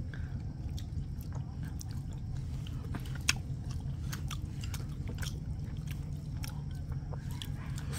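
Close-up eating of rice porridge and braised fish: chewing and biting with scattered small clicks, over a steady low hum.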